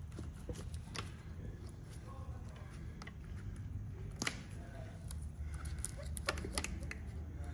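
Diagonal cutters snipping plastic zip ties off a motorcycle's wiring harness: scattered sharp clicks about a second or two apart, with the rustle of cables being handled, over a low steady hum.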